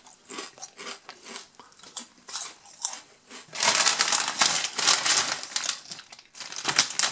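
Potato crisps crunching as they are chewed, faint and scattered, then a Lorenz Crunchips foil crisp packet crinkling loudly as it is picked up and opened, from about three and a half seconds in, with a brief pause before a second burst of crinkling near the end.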